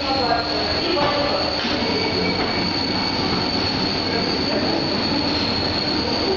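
FAST700P 1500 dough sheeter running, its conveyor belts and rollers making a steady mechanical whir with a constant high whine.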